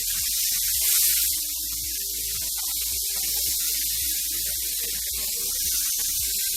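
T-bone steaks sizzling in a hot frying pan: a steady hiss that swells briefly about a second in.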